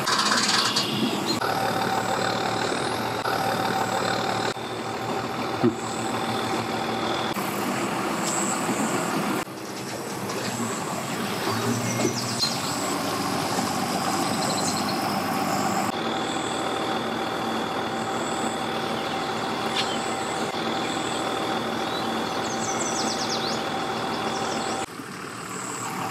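Pickup truck engine running steadily as it tows a pontoon boat on its trailer up a boat ramp out of the water.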